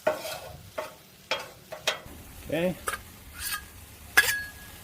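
Metal spatulas scraping and clacking on the steel top of a Blackstone griddle as chicken fajita filling is slid across it, with food sizzling underneath. The strokes come in a quick irregular series, and a sharper clang near the end rings briefly.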